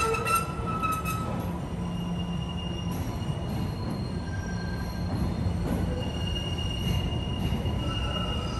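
MBTA Green Line light-rail train running through the subway station and pulling away, its steel wheels squealing on the rails in high tones that come and go over a steady low rumble.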